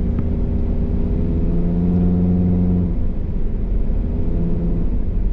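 Car engine and road noise heard from inside the moving car: a steady low rumble whose engine note rises slightly, then drops about three seconds in.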